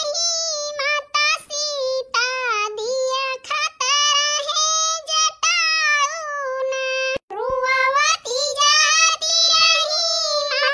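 A high-pitched voice singing a song with long held notes, breaking off briefly about seven seconds in.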